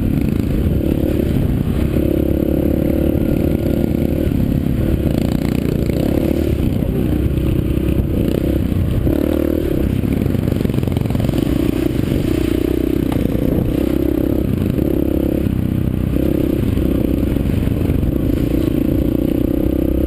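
Yamaha TTR-125 dirt bike's single-cylinder four-stroke engine running under the rider, its revs rising and falling again and again as the throttle is worked along a rough trail.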